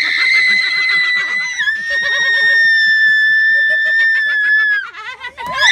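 A young woman's long, high-pitched scream, held for about five seconds and dipping slightly in pitch after a second and a half, then a second short scream near the end.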